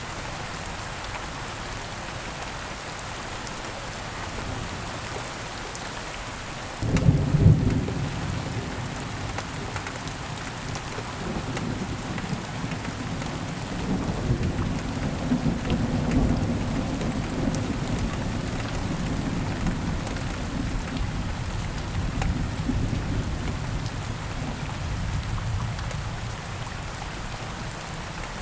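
Steady heavy rain falling, with a sudden thunderclap about seven seconds in followed by a long rolling rumble of thunder that swells and slowly fades.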